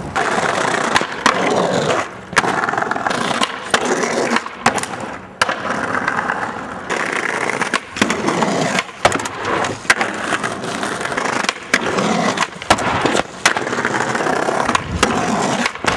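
Skateboard wheels rolling over concrete pavement, broken by many sharp clacks of the board popping and landing, and a scrape as it grinds along a brick ledge.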